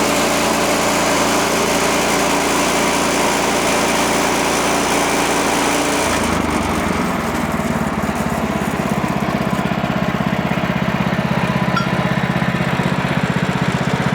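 Small gas engine of a portable sawmill running: for about six seconds the blade is cutting, with a high-pitched saw noise over the engine, then the cutting noise stops and the engine keeps running at a lower, steadily pulsing idle.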